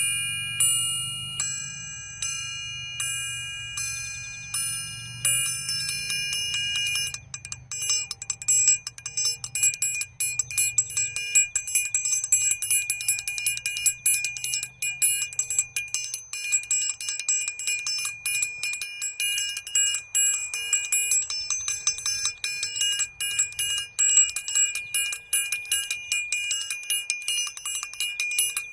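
A small high-pitched bell, struck about once a second and left to ring out, then from about seven seconds in rung rapidly so the strikes run together into continuous jingling ringing.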